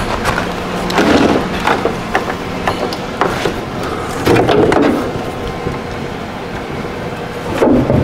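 Scattered plastic clicks, knocks and a few dull thuds as an underhood fuse and relay box is handled and unclipped to be taken apart.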